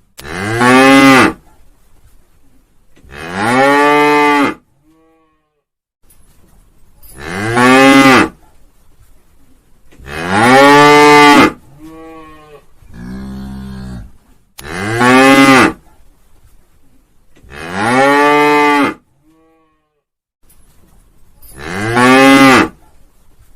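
A cow mooing again and again: about seven loud moos, each a second or so long, rising then falling in pitch, spaced a few seconds apart. About halfway through there is one quieter, lower moo.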